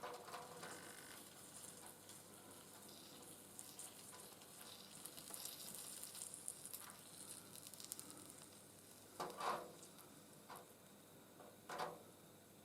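Faint sizzling and crackling of flux as solder is melted onto a joint in the copper lamp top, with two short knocks near the end.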